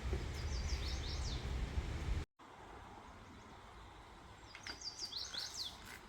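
A small songbird singing a short phrase of quick, falling chirps, twice. A low rumble under the first phrase stops abruptly about two seconds in.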